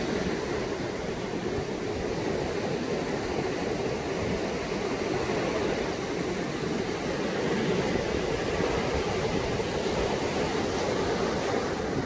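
Heavy typhoon surf breaking and washing up a sandy beach, a steady unbroken wash of waves.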